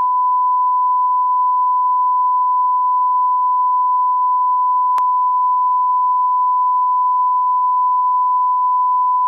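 Steady 1 kHz reference tone played with SMPTE colour bars: a single unbroken pitch held at constant loudness, with a faint click about five seconds in.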